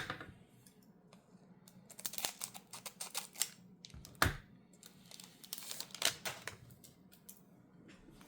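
Plastic foil wrapper of a Magic: The Gathering Play Booster pack crinkling and tearing as it is opened, in scattered crackles with a soft knock about four seconds in.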